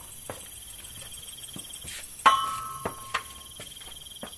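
Crickets chirping steadily at night. About two seconds in comes a single sharp metallic clink that rings briefly and fades.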